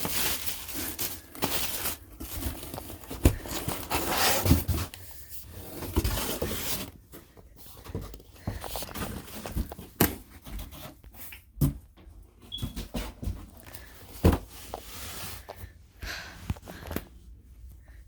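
Close handling noise: rustling and scraping with scattered knocks, busiest in the first six seconds, then sparser clicks and taps.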